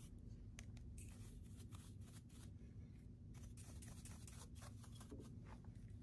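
Faint, irregular scratchy strokes of a small brush sweeping metal cutting shavings off the clamp and tray of an Xhorse Condor XC-Mini Plus key cutting machine.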